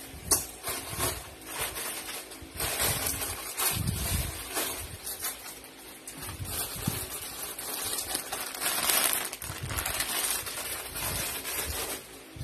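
Irregular rustling of plastic packets and bags with light knocks and clicks as small stock items are picked up and sorted into cardboard boxes and plastic crates.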